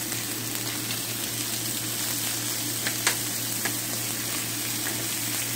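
Salmon steaks and apple pieces sizzling in a hot ridged grill pan, a steady frying hiss, with a few light clicks of metal tongs against the pan about three seconds in.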